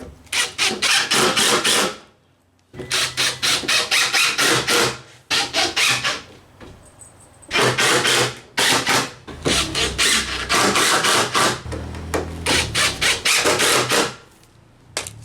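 Impact driver driving screws through plywood into a wooden ramp frame, in a series of loud rattling bursts each a second or two long with short pauses between screws.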